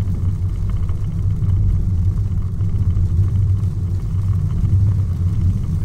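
Steady low rumble of tyres and road noise inside the cabin of a moving Tesla Model Y, an electric car with no engine note, on a wet road.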